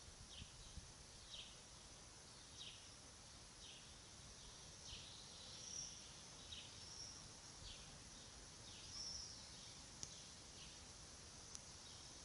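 Faint birdsong: a bird repeats a short, downward-sliding chirp about once a second, with a few higher notes mixed in. Two sharp clicks come near the end.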